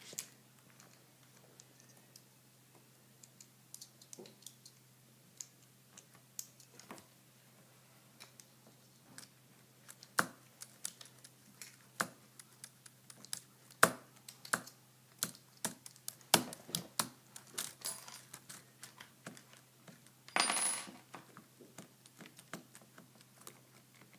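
Small metal screws and a tool clicking and clinking as the motor is unbolted from an RC truck: scattered sharp taps, busiest in the middle, with a brief scrape about twenty seconds in.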